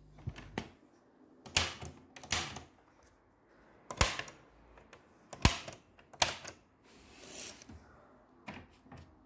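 Scattered mechanical clicks and clunks from an old Grundig radio being handled, including its piano-key band buttons being pressed down. About ten separate clicks, with quiet gaps between them.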